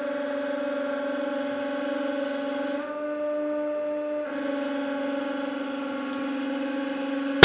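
Hydraulic press running, a steady pitched hum as the ram loads a 30 mm steel drill bit end-on and the force builds. The hum shifts slightly in pitch about three seconds in.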